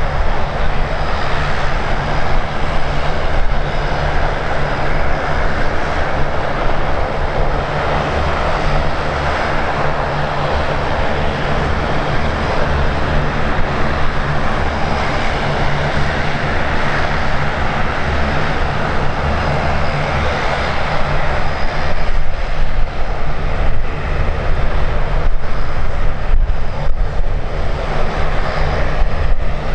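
Airliner engines running with a steady, loud broad roar that grows a little stronger in the last third, with wind rumbling on the microphone.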